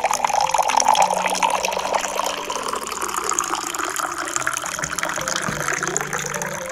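Water running steadily into a container, a continuous pouring hiss, with faint background music underneath.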